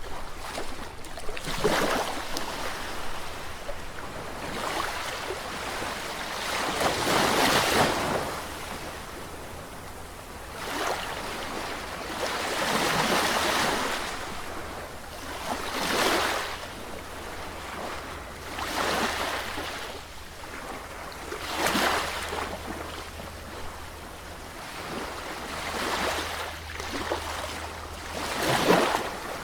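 Sea waves breaking on the shore: a steady wash of surf that swells into a louder crash every three to five seconds, about eight times.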